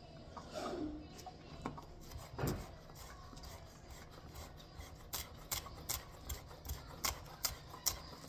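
Kitchen knife chopping a scallion on a wooden cutting board. It is quiet at first, then from about five seconds in comes a steady run of sharp knife taps on the board, nearly three a second.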